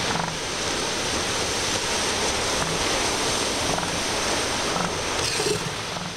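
Pacific surf breaking on a sandy beach: a steady rushing of waves that swells a little near the end.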